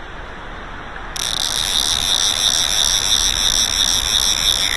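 River current running, and about a second in a loud, steady high-pitched buzz starts abruptly and holds.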